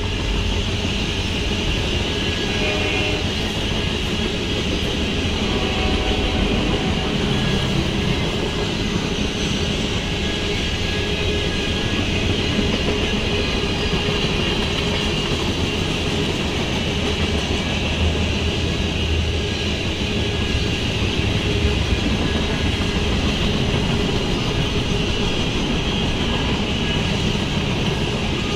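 Norfolk Southern manifest freight train's cars rolling past steadily: continuous wheel-on-rail noise from a long string of tank cars and covered hoppers.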